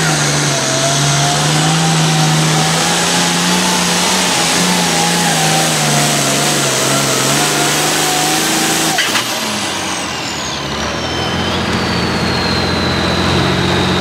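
International 1486 hot farm pulling tractor's turbocharged diesel engine running flat out under load as it drags the weight sled, a steady heavy drone with a wavering whine above it. About nine seconds in the sound shifts, and a high whistle falls in pitch and then holds steady.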